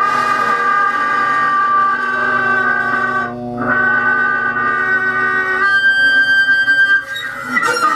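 A small box-shaped object bowed with a long bow, giving sustained droning tones of several pitches at once. The sound breaks off briefly just after three seconds and again near the end, changing pitch each time.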